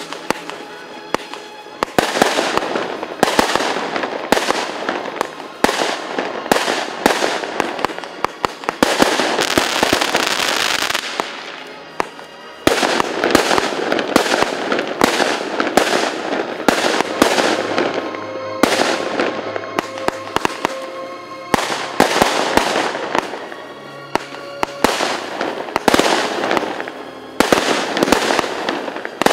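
Fireworks going off: many sharp bangs from exploding shells and firecrackers in quick succession, with a stretch of dense crackling hiss about nine to eleven seconds in.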